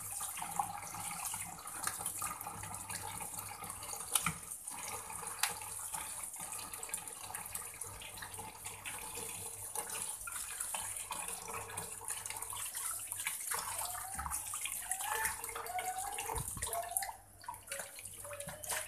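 Kitchen tap running into a plastic bowl in a stainless steel sink while hands rub and rinse small fish, with water splashing. Near the end the tap stops and a hand swishes the fish around in the bowl, water spilling over the rim.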